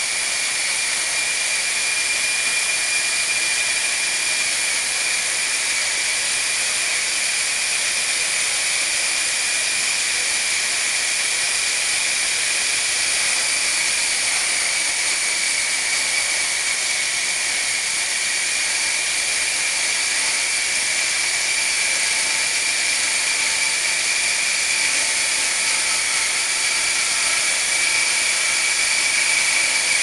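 Homemade electric-motor-driven band sawmill running steadily, its motor and band blade giving a continuous high whine.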